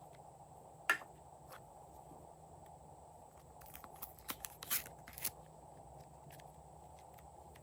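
Glossy slime being handled, giving scattered sharp clicks and pops: a loud one about a second in and a quick cluster around four to five seconds in.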